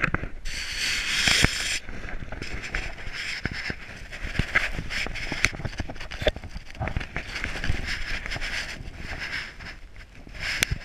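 Close rustling, scratching and small knocks on a GoPro worn on a dog's collar, as the camera rubs against the dog and a quilted blanket. A louder rushing scrape comes about half a second in and lasts about a second.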